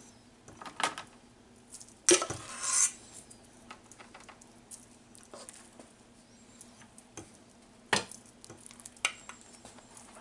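A spoon clicking and scraping while dollops of ricotta are dropped onto lasagna noodles in a disposable aluminium foil pan: scattered light taps, a sharp knock and a short scrape about two seconds in, and another sharp tap near eight seconds.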